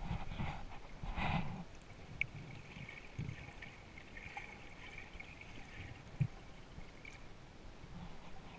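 Muffled water sloshing heard from underwater: a few louder swishes in the first second and a half, then a faint steady hiss with a few small clicks.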